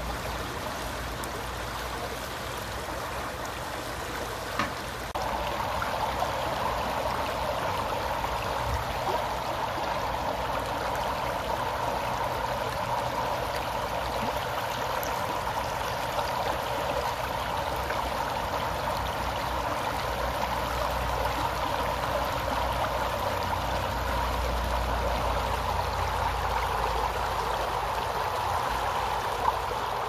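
Shallow stream running fast over stones: a steady rush of flowing water that gets louder about five seconds in.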